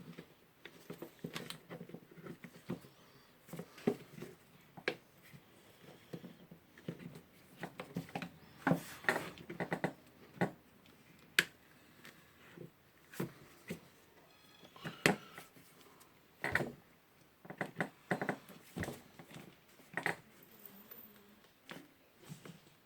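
Irregular clicks, taps and light knocks of plastic housing parts and wiring being handled and fitted as the switch handle of a Hilti DCG 230-D angle grinder is reassembled.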